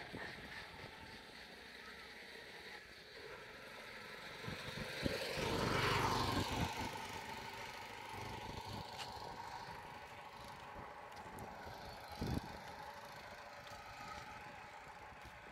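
A motor vehicle passes close by: its engine and road noise swell to a peak about six seconds in, then fade away slowly. There is a short thump about twelve seconds in.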